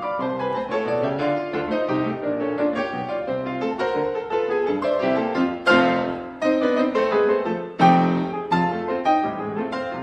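Piano music with quick running notes and two louder struck chords, about six and eight seconds in.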